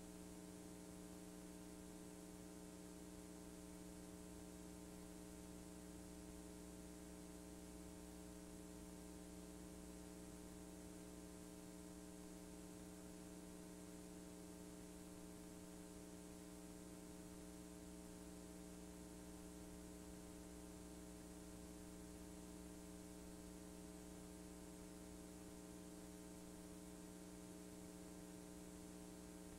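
Faint steady electrical hum with hiss and no other sound, from the playback of a blank stretch of VHS-C tape.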